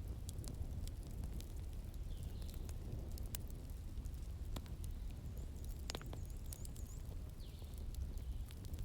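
Wood fire burning in a fireplace, crackling with scattered sharp pops over a steady low rumble, and a few faint, brief high whistles about six seconds in.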